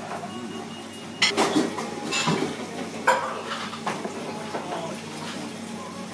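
Tableware clatter: a few sharp clinks of dishes and utensils, about three over a few seconds, over a steady low hum.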